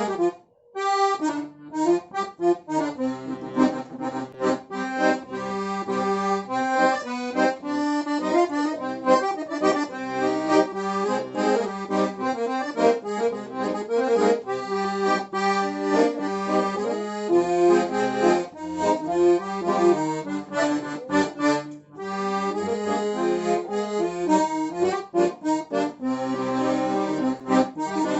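Accordion being played, melody over sustained chords, tried out after a repair. The playing stops briefly just after the start and again about three-quarters of the way through.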